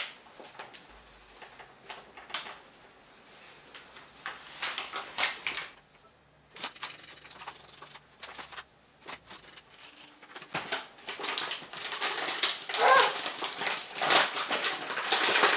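Flour being poured from a paper bag and sifted through a metal hand sieve: scattered scratching and tapping, faint at first and busier over the last five seconds.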